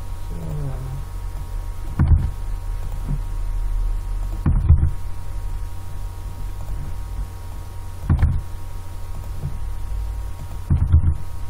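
Steady low electrical hum from the recording setup, with four soft low thumps a few seconds apart.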